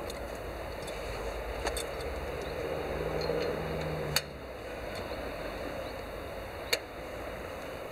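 Three sharp metallic clicks, a couple of seconds apart, from a spark plug and small hand tools being handled, over a steady background hiss.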